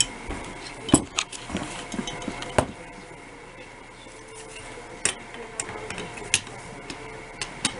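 Sharp metallic clicks and clinks of SKS rifle parts being handled during reassembly, as the gas piston is put back. The loudest clicks come about a second in and about two and a half seconds in, with a few more later on.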